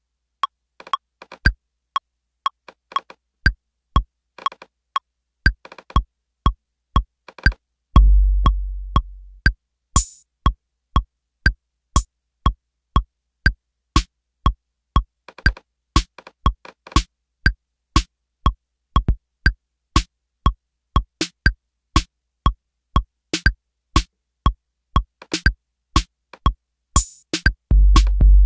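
Drum-machine loop from Maschine's 808 Kit, triggered by a MIDI clip in Ableton Live at 120 BPM: short electronic drum hits about twice a second, sparse at first and fuller from a few seconds in. A long, deep 808 kick boom sounds about eight seconds in and again near the end, with a brief hiss of hi-hat just after the first one.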